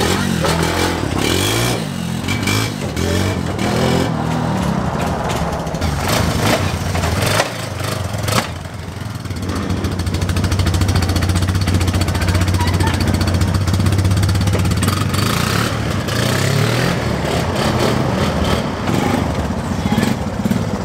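ATV (quad bike) engines running, the pitch rising and falling in the first few seconds, then a steady low drone for several seconds.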